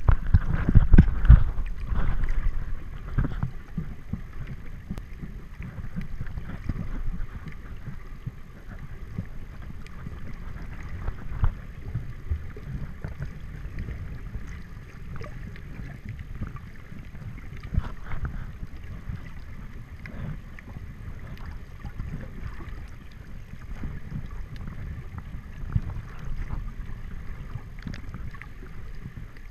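Muffled water movement picked up by a camera held underwater: a low rumble with irregular knocks and bumps, loudest in the first few seconds.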